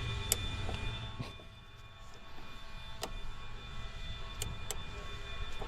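A few sharp, separate plastic clicks as a headlight bulb and its wiring connector are handled and unclipped, over a steady low hum.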